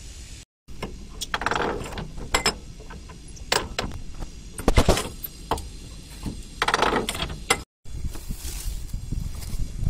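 Metal parts clinking, knocking and rattling as they are handled, with the loudest knock about halfway through. The sound drops out completely twice, briefly, where the clips are cut.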